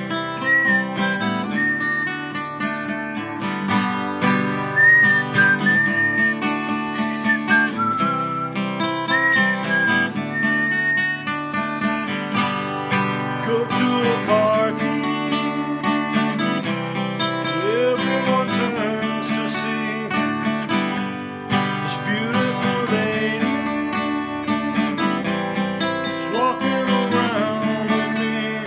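Acoustic guitar being strummed and picked, with a man whistling the lead melody over it for about the first ten seconds, then the guitar carrying on alone.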